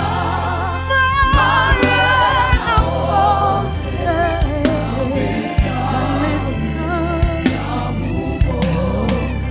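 Live gospel music: a female lead voice and a backing choir singing with vibrato over a band of bass, keyboards and drums.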